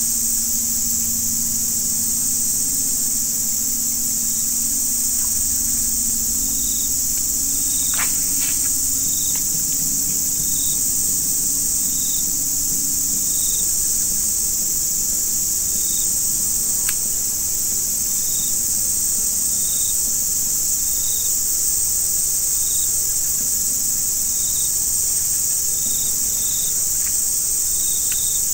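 A dense, steady, high-pitched chorus of insects. From a few seconds in, a short chirp repeats about every second and a half, with a couple of faint clicks.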